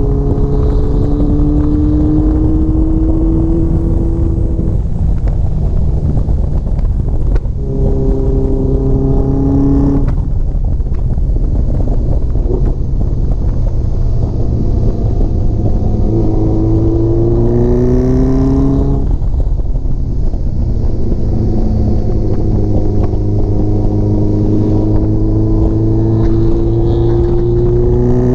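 Honda CBX750 cafe racer's inline-four engine pulling along a lane, its note climbing in each gear and dropping away at each shift or roll-off, several times over. Constant wind rush on the bike-mounted microphone.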